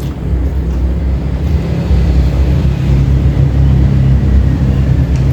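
A steady low engine rumble, as of a motor vehicle running close by.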